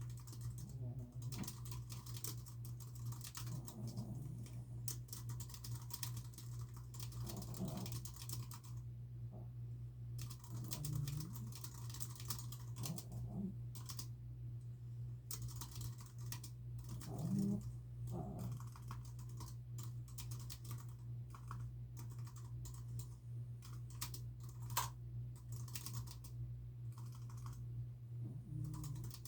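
Typing on a computer keyboard in quick runs of key clicks with short pauses, over a steady low hum. Now and then a dog's soft snore sounds underneath.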